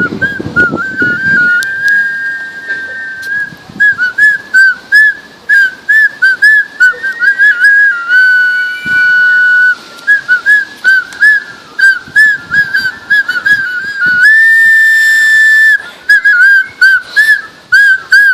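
A man whistling a tune by mouth: quick runs of short notes that rise and fall, broken by a few long held notes, the longest about fourteen seconds in.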